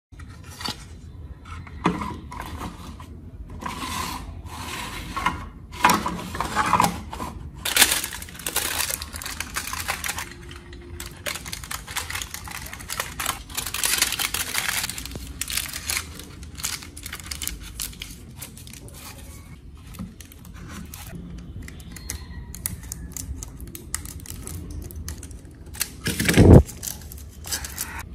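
Aluminium foil crinkling and rustling as it is wrapped and pressed around a small block by hand, in short irregular bursts. A single louder knock comes near the end.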